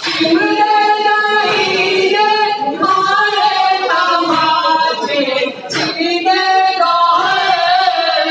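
Two men chanting an Urdu noha, a Shia mourning lament, without instruments through a microphone and loudspeaker, holding long wavering notes. A sharp slap sounds about every three seconds: the mourners beating their chests in matam.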